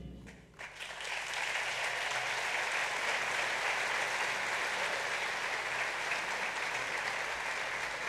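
Audience applauding, breaking out just under a second in and then going on steadily.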